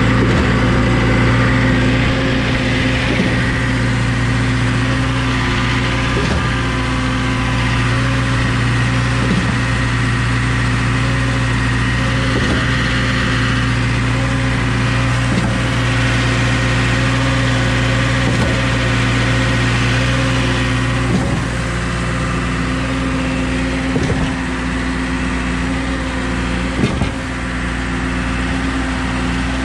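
Engine running steadily at an even speed, with a faint knock about every three seconds.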